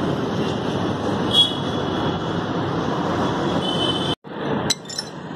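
Steady rumble of road traffic with a faint high whine, cut off abruptly about four seconds in, followed by a few sharp clicks.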